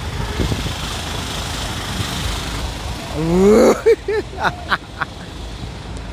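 Steady low rumble of an idling bus engine. About three seconds in comes a loud, short sound rising in pitch, then a few short sharp sounds.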